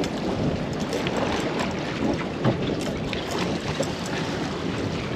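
Wind buffeting the microphone and water washing against a small boat's hull, with scattered short clicks and knocks.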